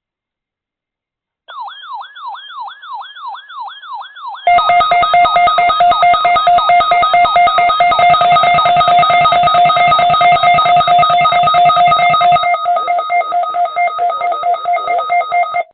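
Electronic emergency alert tones of a weekly test of the NOAA Weather Radio warning alarm. A warbling tone sweeps down about three times a second, then about three seconds later a much louder, steady alarm tone with a fast pulsing buzz takes over and cuts off suddenly near the end.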